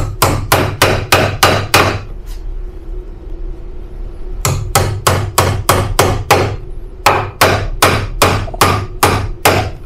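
Hammer driving the nails of a plastic nail-on electrical box into a wooden 2x4 stud: three runs of quick, even strikes, about four a second, with short pauses between them.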